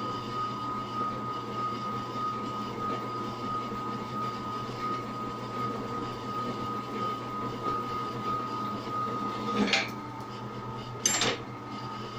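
Drill press motor running steadily with a constant high whine and low hum while the twist bit cuts through metal angle lubricated with soluble cutting oil. Two brief louder noises come near the end, as the cut finishes and the bit is lifted clear.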